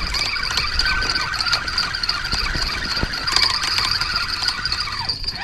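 Spinning reel cranked quickly, its gears giving a steady whirr that stops about five seconds in.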